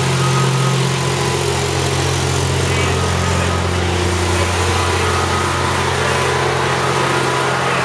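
Engine of a lighting truck running steadily, a constant low drone that does not change.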